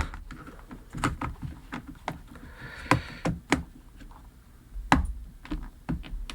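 Irregular plastic clicks and knocks as a headphone earcup and its replacement earpad are handled and pressed down against a tabletop, trying to get the earpad's plastic ring to snap on.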